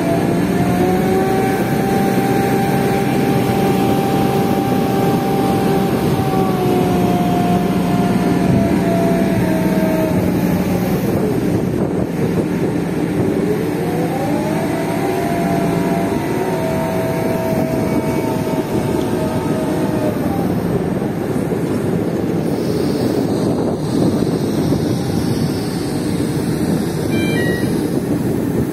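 SANY crawler crane's diesel engine running loud and steady; its speed drops about ten seconds in and picks up again a few seconds later. In the last third the engine tone fades under a steady rushing noise.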